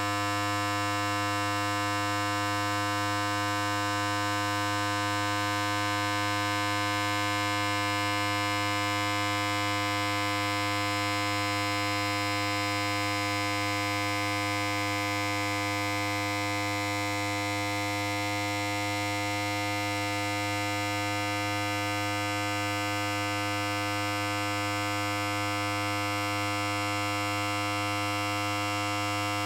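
Electric hair clipper running continuously: a steady, unchanging buzz.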